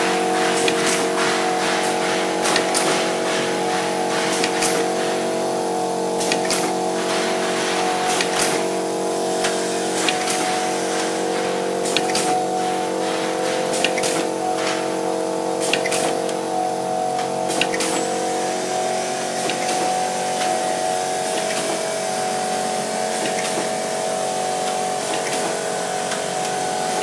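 Horizontal flow-wrap packing machine running, bearings on its conveyor: a steady hum made of several tones, with frequent irregular clicks and ticks from the mechanism. The tones shift a little about two-thirds of the way through.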